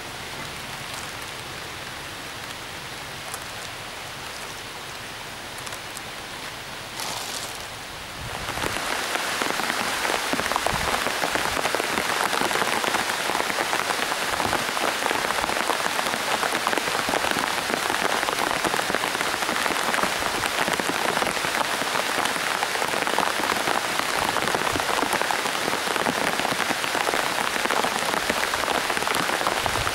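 Heavy rain pouring steadily. It is softer for the first eight seconds, then jumps to a louder, denser downpour.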